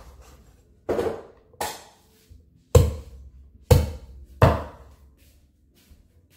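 Kitchen knife chopping through cooked meat onto a wooden cutting board: five sharp chops, roughly a second apart, ending a little past the middle.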